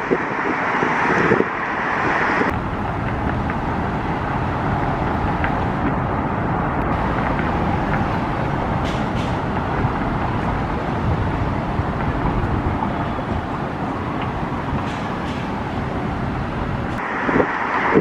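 Steady outdoor background of road traffic rumble mixed with wind on the microphone.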